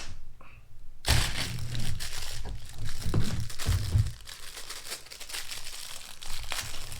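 Plastic crinkling and rustling as a Lego parts bag and pieces are handled, with a few soft knocks on the table. It starts about a second in.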